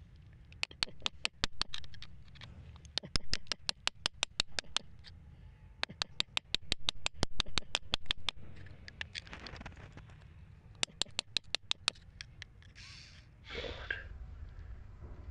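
Quick, light taps of a flat pointed tool picking at crumbly sandy rock around an embedded stone, in four runs of about six to seven taps a second. Short scrapes of grit come between the runs, and the loudest scrape is near the end.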